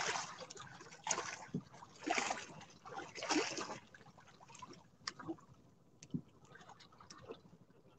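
Sea water sloshing and splashing against the side of a small wooden outrigger boat, in a few irregular surges during the first half, then quieter lapping with small scattered ticks.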